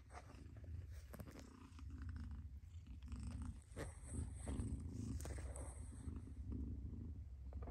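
Mother cat purring: a low, continuous purr that pulses in and out, with a few small clicks.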